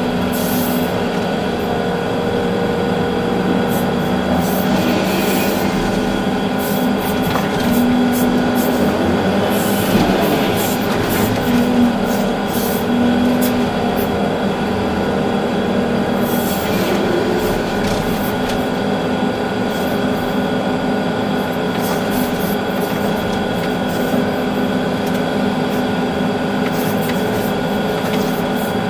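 Volvo EC380D excavator's six-cylinder diesel engine and hydraulics running steadily under working load, heard from inside the cab, a drone with several steady tones. Scattered rattles and knocks occur throughout.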